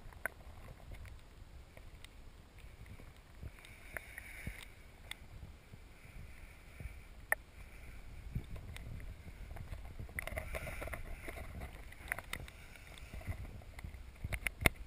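Underwater audio from a camera in a lake: a low rumble with scattered sharp clicks and ticks, the loudest near the end, and a faint hum rising in the middle stretch.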